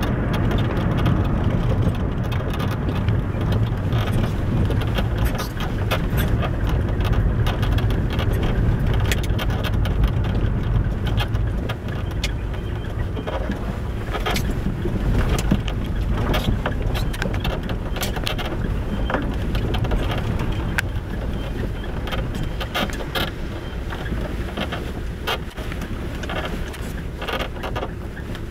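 A Lada VAZ-2111 is driving, with a steady low road-and-engine rumble. Its suspension strut squeaks and clicks repeatedly over bumps.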